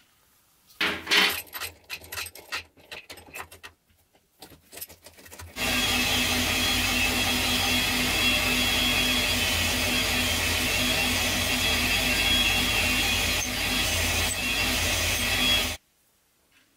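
Scattered clicks and knocks of a ball bearing and a small turned metal part being handled and fitted together. Then, from about five and a half seconds in, a metal lathe turns the part: a loud, steady machining noise with a held tone, which stops abruptly near the end.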